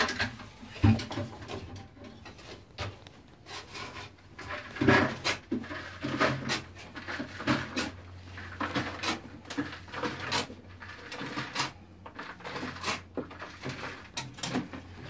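Irregular knocking, clatter and scraping of digging tools and broken rock in a hand-dug shaft, with a low steady hum under the middle part.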